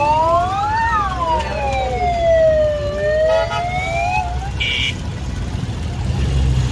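Vehicle siren wailing: its pitch rises to a peak about a second in, falls slowly over two seconds, then climbs again. A low traffic or engine rumble runs underneath, and a short higher beep sounds about four and a half seconds in.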